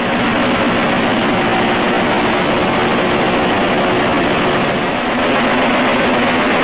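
MTU V20 four-stroke turbocharged marine diesel engine running steadily in its engine room: a loud, even drone with a steady low engine note.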